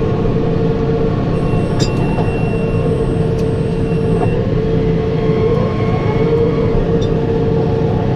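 Tractor engine running steadily under load while pulling a round baler through hay, with a constant steady whine over the engine drone.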